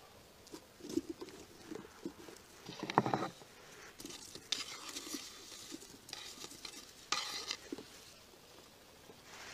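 Food being loaded by hand into a hollowed raw pumpkin: pieces of roast chicken set in, then fried potato cubes scraped off a wooden board and pressed down. Irregular soft knocks and handling noises, a louder clatter about three seconds in, then rustly scraping.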